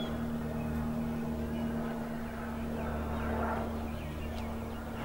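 Steady hum of a running engine at one even pitch, with a few faint high chirps in the second half.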